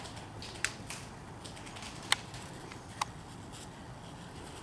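Airsoft guns firing scattered single shots: a few short, sharp cracks at irregular intervals, the loudest about two seconds in, over a low steady rustle.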